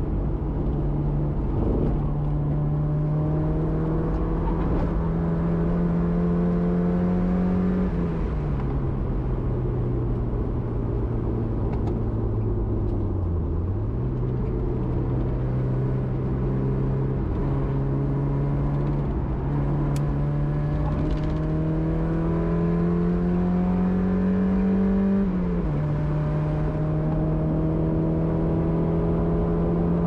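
Mazda MX-5 Eunos four-cylinder engine heard from the cockpit under hard track driving. Its note climbs steadily through long pulls and falls sharply at upshifts, about eight seconds in and again about twenty-five seconds in, with a brief dip and recovery a little before halfway.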